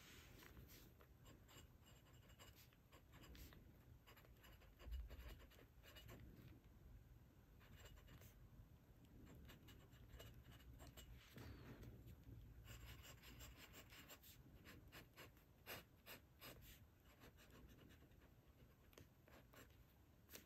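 Faint scratching of a glass dip pen nib on notebook paper: a long run of quick, short strokes as letters, squiggles and lines are written.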